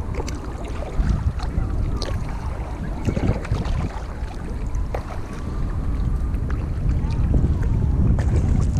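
Canoe paddling on a lake, with scattered splashes and small knocks from the paddles and hull under a steady rumble of wind buffeting the microphone.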